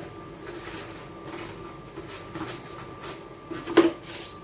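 Wrapping material rustling and crinkling in the hands as food is wrapped for steaming, with one sharp knock a little before the end.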